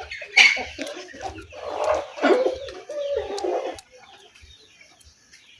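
Domestic chickens clucking, several calls over the first few seconds, then quieter.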